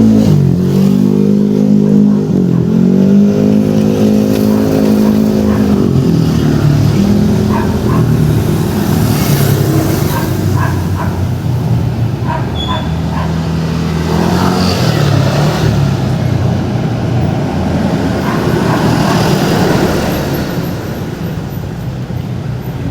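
Motor vehicle engine revving up and down, its pitch rising and falling several times in the first six seconds, then running more steadily under a rush of road and wind noise.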